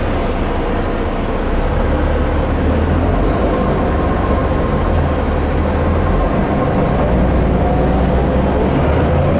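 Mercedes O408 bus heard from inside the passenger cabin while under way: a steady diesel engine and road rumble, with a faint whine that rises in pitch near the end.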